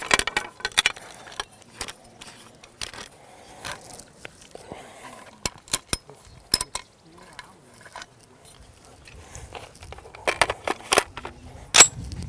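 Scattered sharp metallic clicks and knocks of a .308 modular breakdown rifle being handled and taken apart into its pieces, with a cluster of louder clicks near the end.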